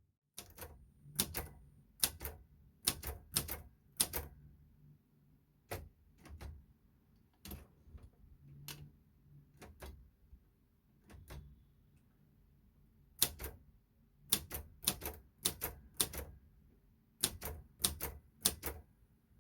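Keys of an Imperial Litton 201 typewriter striking the page, typed slowly and unevenly: a few strikes in a cluster, a sparser stretch in the middle, then a quicker run of strikes near the end.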